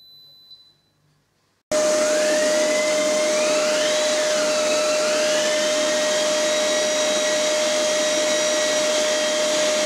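Vacuum cleaner running steadily at the tip of an electric drill boring holes into a wall, the drill's pitch wavering about three to five seconds in. It cuts in abruptly about two seconds in, after a faint electronic beep from a wall wire detector.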